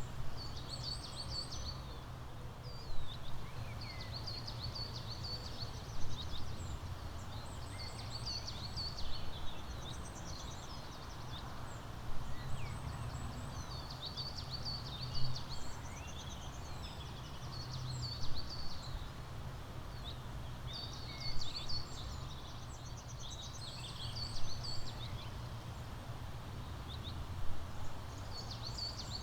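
Songbirds chirping and trilling in short bursts that come about every three seconds, over a steady low rumble.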